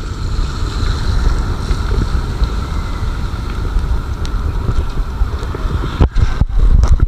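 Wind buffeting an action camera's microphone while mountain biking, a loud, steady low rumble. It gets gustier and louder near the end, cutting in and out briefly a few times.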